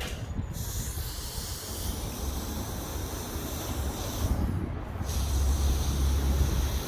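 MIG wire-feed welder arc crackling and hissing in two runs, with a short break a little past four seconds in, over a steady low hum.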